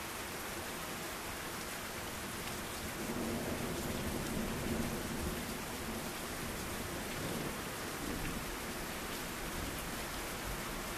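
Steady rain falling, with a low rumble of thunder swelling about three seconds in and fading out a few seconds later.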